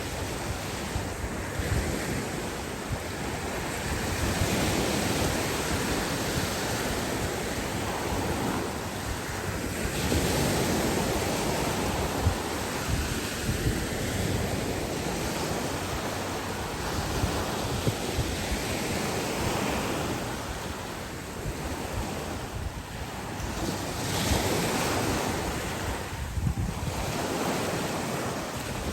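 Sea waves breaking and washing up on a beach, the surf swelling louder every several seconds and easing between, with wind buffeting the microphone.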